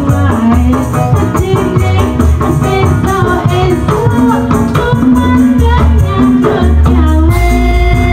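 A woman singing through a microphone and loudspeakers over keyboard backing music with a steady shaker rhythm. About seven seconds in, the backing changes to held organ chords.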